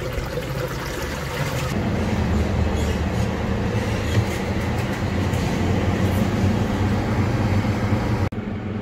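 A machine running steadily: a low motor hum under a dense rushing hiss, growing louder about two seconds in and cutting off abruptly near the end.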